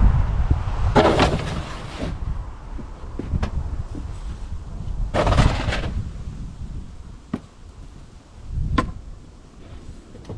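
A metal snow shovel scraping and scooping snow across a pickup truck's bed, twice in long scrapes, with a few sharp knocks of the shovel in between and snow being packed into the exhaust stack. A low wind rumble on the microphone runs underneath.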